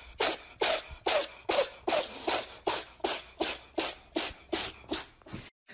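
A steady run of short, breathy puffs of air, about two and a half a second, like rhythmic huffing or sniffing close to the microphone. They cut off abruptly near the end.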